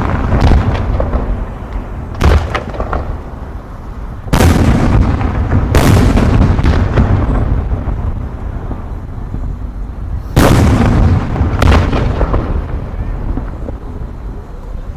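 Aerial fireworks shells bursting: five sharp booms, each trailing off in a long rumble with crackling. The loudest come about four, six and ten seconds in.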